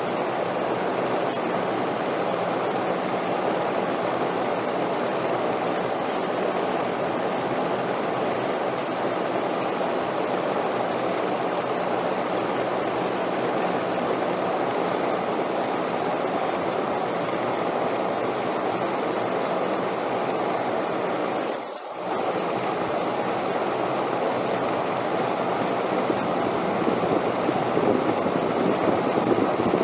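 Steady rushing wind, an even noise with no gusts standing out, that drops out for a moment about two-thirds of the way through.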